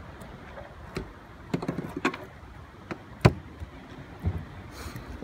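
A few knocks and thumps on a sailboat's deck and cockpit as a person moves about and handles gear, the loudest about three seconds in, over a steady low rush.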